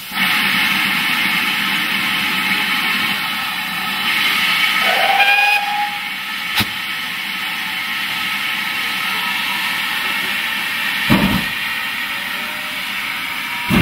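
GWR Manor-class 4-6-0 steam locomotive hissing steadily with steam as it stands ready to depart. About five seconds in comes a short whistle blast that rises in pitch and then holds, followed by a sharp click. Near the end the first slow exhaust beats sound as it starts away.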